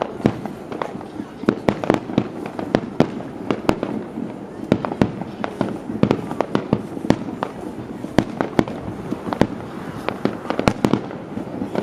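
Fireworks display: many aerial shells bursting in quick, irregular succession, sharp bangs and pops several times a second, overlapping with no pause.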